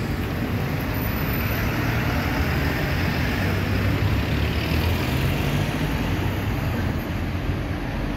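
Steady low rumble of background noise with a hiss above it, with no clear tones or rhythm.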